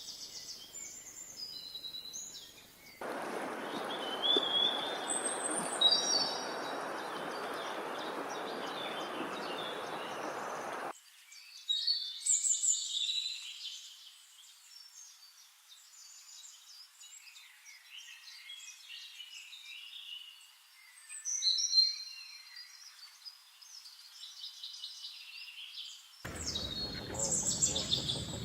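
Small birds chirping and singing in short high calls and trills, repeated throughout. A steady rushing noise starts suddenly about three seconds in, cuts off abruptly about eleven seconds in, and comes back near the end.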